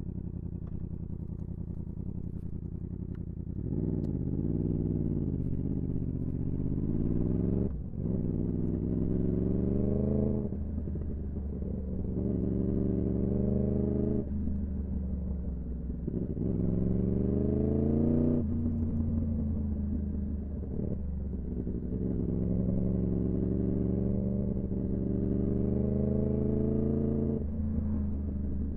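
Yamaha R1M's crossplane inline-four engine accelerating hard again and again, its pitch climbing and then dropping as it shifts or rolls off the throttle, with short sharp breaks in the sound at the changes.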